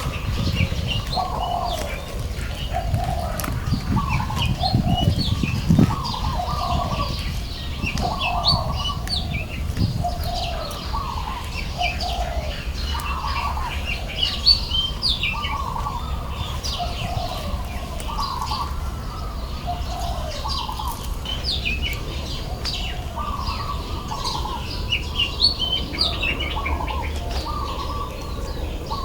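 Birds calling: a mid-pitched call repeated about once a second, with higher short chirps over it and a low rumble underneath.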